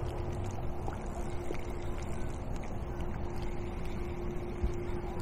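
Wind buffeting the microphone, with a faint steady hum under it and a few light clicks.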